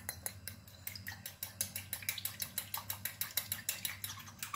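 A utensil beating egg yolk and milk in a small glass bowl: a quick, steady run of light clicks against the glass.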